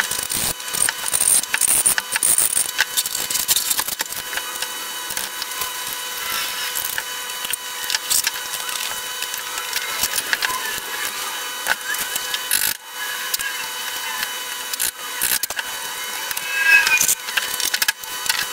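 Hand chisel paring and scraping the corners of 3/4-inch plywood parts, a long run of short scraping strokes, to square up the round corners left by the CNC end mill. A faint steady whine sits underneath.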